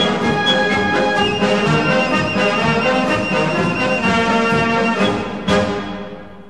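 Orchestral background music led by brass, with a single sharp hit about five and a half seconds in, after which the music fades away.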